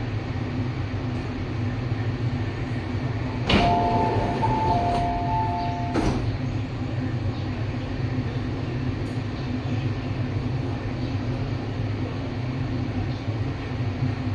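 Steady low rumble inside an MTR East Rail Line train car. About three and a half seconds in, a click starts a two-tone electronic chime that alternates between two notes for about two and a half seconds, then ends with another click.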